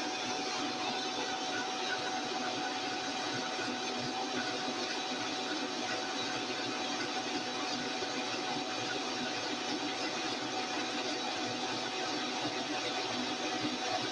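Countertop blender motor running steadily while oil is slowly poured into it, emulsifying a tamari vinaigrette.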